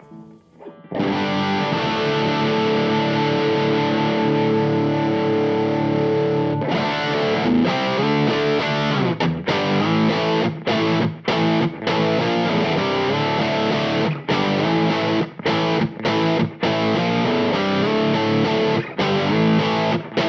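Electric guitar played through a Teisco Distortion pedal with its gain set fairly low. A chord is struck about a second in and left to ring for several seconds, then chords are played in a choppy rhythm with short stops.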